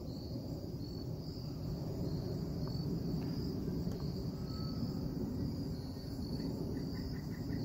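Crickets chirring steadily in a high, pulsing band over a low outdoor rumble. From about six seconds in, a faint quick run of evenly spaced woodpecker notes joins them.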